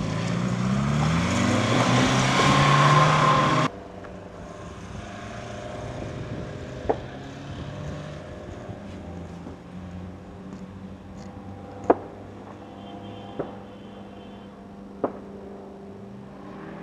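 Car engines revving hard, rising in pitch, as the cars spin on loose dirt; the sound cuts off abruptly about four seconds in. After that, a quieter, steady engine running, with a few sharp knocks.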